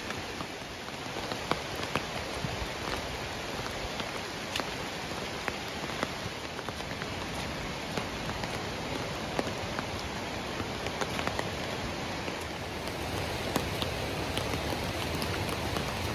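Steady rain, with scattered sharp taps of drops striking an umbrella canopy held overhead.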